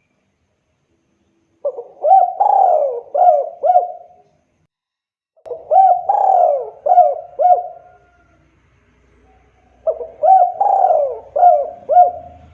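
Spotted dove (tekukur) cooing: three phrases, each a run of four or five hooting notes lasting about two seconds, a few seconds apart.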